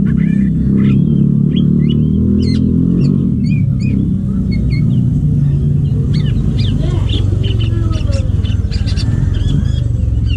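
A cucak ijo (green leafbird) singing quick varied chirps and whistles, busier in the second half, over a loud steady engine rumble.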